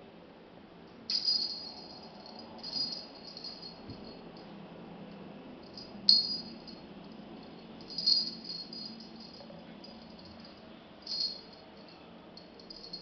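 Small jingle bell on a feather wand cat toy, jingling in short bursts about five times as the wand is shaken and batted.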